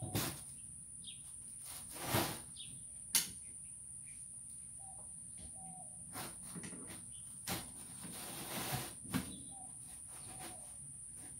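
Scattered clicks and knocks of metal pressure-washer fittings being handled while a quick-connect coupling is fitted to a surface cleaner, the sharpest click about three seconds in and a rustle near the end. A steady high-pitched whine and a few faint bird chirps underneath.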